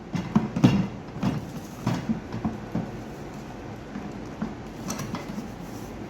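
Irregular knocks and clunks from something being handled, thickest in the first two seconds, then fewer and fainter.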